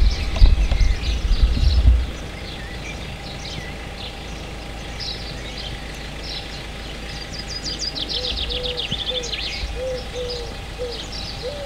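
Rumble and knocks of the camera being handled in the first two seconds, then small birds chirping, with a fast trill about eight seconds in and a low short call repeated about twice a second near the end.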